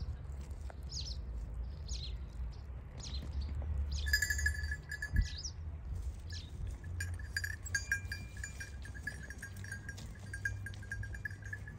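A sheep's neck bell jingling in a flock of sheep: a brief spell about four seconds in, then steadily from about seven seconds on. Short high chirps of small birds are heard through the first half.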